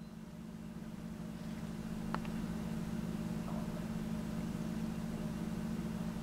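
A steady low machine hum, with a faint click about two seconds in.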